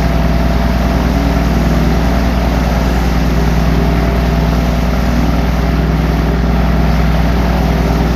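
UL Power UL520iS six-cylinder, air-cooled aircraft engine idling steadily at about 1200 rpm, heard from inside the cockpit.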